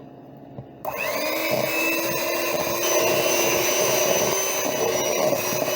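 Electric mixer switched on about a second in, its motor whining up to speed and then running steadily as it beats thick peanut butter cookie dough.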